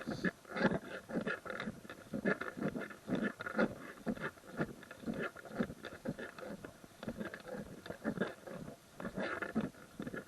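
Footsteps of hikers walking on a trail at a steady pace, about two steps a second.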